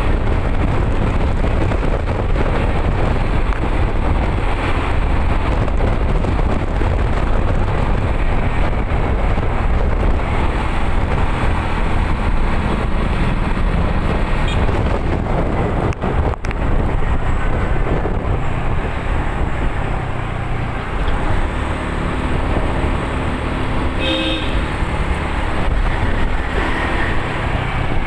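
Steady road noise of a moving vehicle, a loud low rumble with rushing air, dropping out for a moment just after halfway. A short horn toot sounds about three-quarters of the way through.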